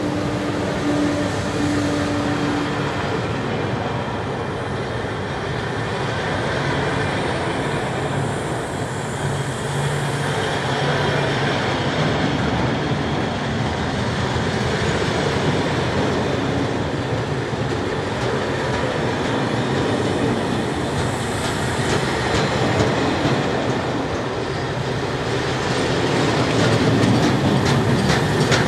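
Fully loaded log freight train passing close by: a steady rumble of wagon wheels on the rails. A hum from the passing Sr1 electric locomotive fades in the first few seconds. Regular wheel clicks over the rail joints get louder near the end.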